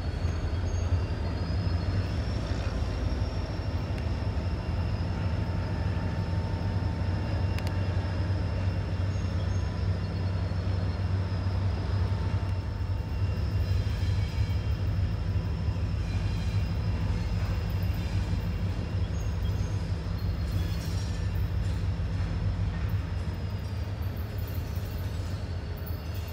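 Norfolk Southern diesel locomotive running with a steady low drone as it moves slowly through a grade crossing.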